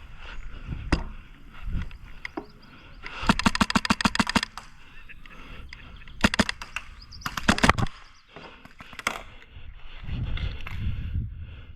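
Airsoft guns firing in several rapid bursts of evenly spaced shots, the longest a run of about ten shots lasting a little over a second, with shorter bursts after it.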